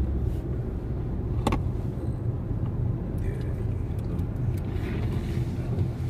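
Car driving along a road, heard from inside the cabin: steady engine and tyre rumble with an occasional click. Near the end the windshield washer and wipers come on, adding a faint hiss and swish over wet glass.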